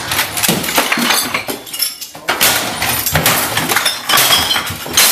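Glass bottles and objects on a desk being smashed with a swung rod: a rapid, irregular series of crashes with breaking glass and clinking.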